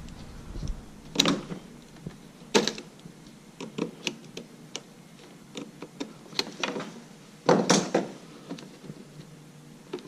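Scattered clicks and knocks of hand work on a RedMax backpack leaf blower, as tape is cut away from its throttle cable and the plastic parts are handled.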